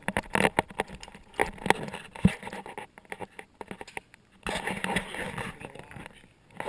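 Irregular patter of clicks, scuffs and scrapes close to a handheld GoPro as the person carrying it moves about, quieter near the end.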